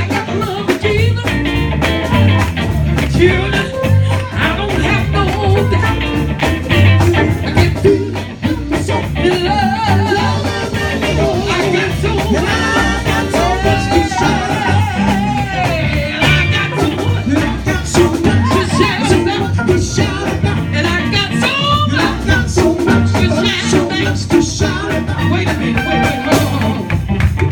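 Gospel song played by a live band with guitar, a steady beat and a voice singing over it.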